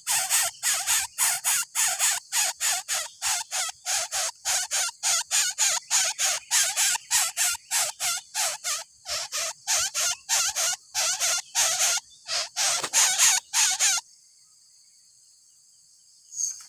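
Coucal nestling giving rapid, harsh, hissing begging calls, about three a second, that stop abruptly near the end.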